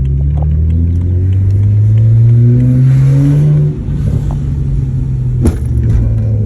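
BMW 335i's N54 twin-turbo straight-six pulling under hard acceleration, freshly fitted with new boost solenoids. The engine note rises steadily, drops sharply about three and a half seconds in as it shifts up, then climbs again. There is a single sharp click a little after five seconds.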